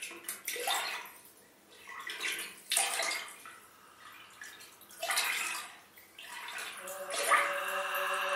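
Swells of splashing, sloshing water come in four waves in an ambient music track. Near the end, a chord of held, choir-like sung tones fades in beneath them.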